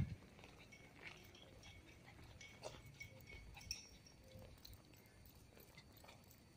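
Near silence: faint outdoor ambience with a short thump at the very start and a few faint, irregular clicks.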